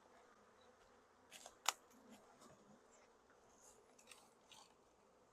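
Near silence: faint buzzing of honeybees just shaken out of a package into a hive, with a few faint clicks, the sharpest about one and a half seconds in.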